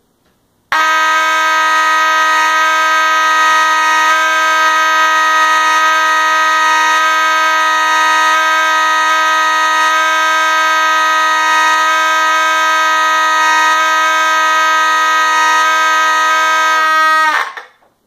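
Two vintage Simplex fire alarm horns, a relabeled Federal Vibratone 450 and a relabeled Faraday 6020, sounding together in a steady, loud, continuous blare. They switch on sharply about a second in and cut off shortly before the end.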